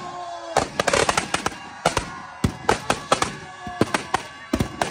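Firecrackers packed inside a burning effigy going off in quick, irregular bangs, several a second, after a quieter first half second.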